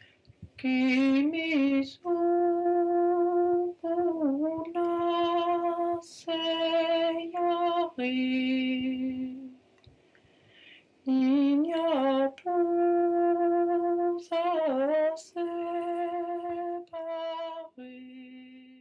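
A woman's voice singing a slow Greek lullaby alone: two long phrases of held notes with small ornamented turns, with a short pause between them.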